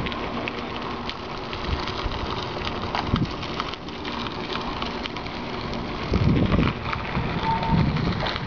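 Bicycle rolling along an unpaved path: a steady crackling hiss of tyres on grit with scattered clicks and rattles. Low gusts of wind on the microphone come about six seconds in.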